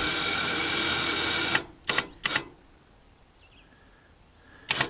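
A sawmill's head-positioning drive running steadily and stopping abruptly about a second and a half in. It is then jogged in three short bursts while the blade height is set to a mark.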